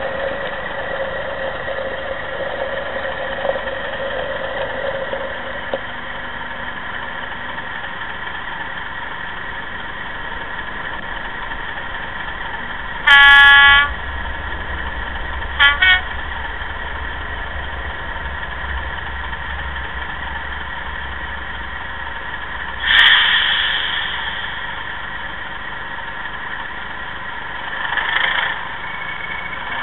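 A DCC sound decoder in an OO gauge model diesel locomotive plays a diesel engine idling through its small speaker. About 13 seconds in, one loud horn blast lasts under a second, and two quick short toots follow a few seconds later. Further brief swells in the engine sound come later on.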